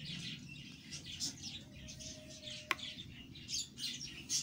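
Small birds chirping on and off, with one sharp click a little after halfway through.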